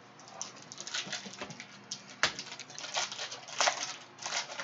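A Panini Prizm retail trading-card pack wrapper crinkling and crackling as it is torn open and the cards are pulled out, with one sharper crack a little over two seconds in.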